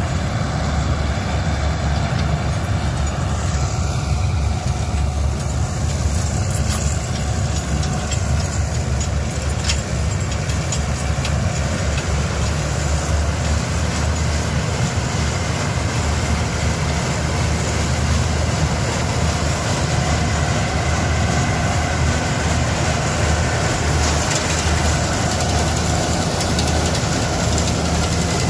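Swaraj combine harvester's diesel engine running steadily as its unloading auger empties paddy into a tractor trolley, with a tractor engine idling alongside.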